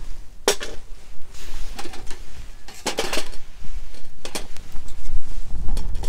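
Dry driftwood twigs being fed into a small folding stainless-steel wood-burning stove, giving several short sharp knocks and cracks against the metal, over a low rumble of wind on the microphone.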